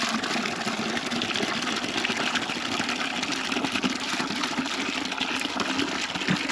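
Water running steadily into a bucket as it is filled.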